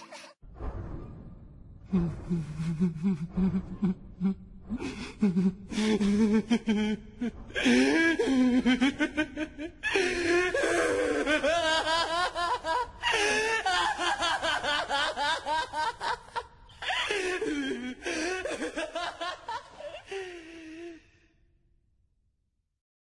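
A voice laughing in long, pulsing runs that rise and fall in pitch, starting about two seconds in and stopping about 21 seconds in.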